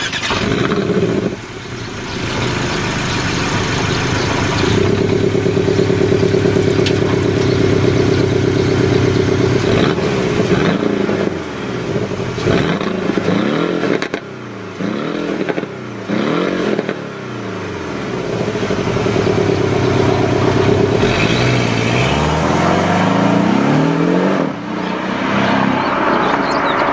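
2017 Porsche Boxster's turbocharged flat-four engine revving. It holds steady high revs for several seconds, is blipped up and down repeatedly, then climbs again near the end.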